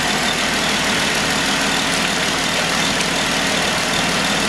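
2015 Jeep Wrangler JK's 3.6-litre Pentastar V6 idling steadily with the hood open, as it is run so air can purge from the cooling system after a thermostat replacement.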